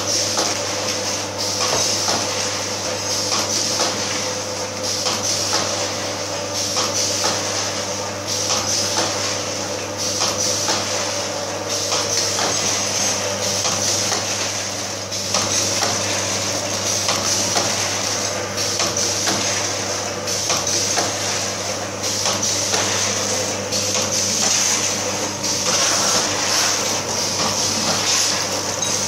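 Automatic vertical pouch packing machine running: a steady hum and hiss with frequent mechanical clacks as it forms, fills and seals snack pouches.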